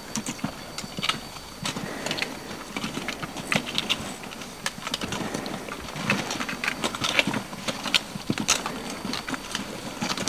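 Irregular crunching and clicking of boots and hands on loose volcanic scree as climbers scramble up a steep slope.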